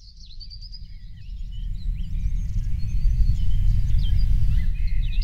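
Several birds chirping and calling in short, high notes over a loud low rumble, with a rapid high trill coming in near the end.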